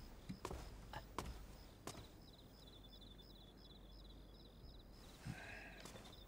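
Faint ambience: a few soft footsteps in the first two seconds, over a steady chirping of crickets, with a short soft sound about five seconds in.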